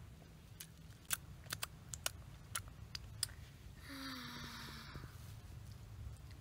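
A person chewing food, with faint scattered wet clicks from the mouth, then about four seconds in a breathy 'ahh' of about a second.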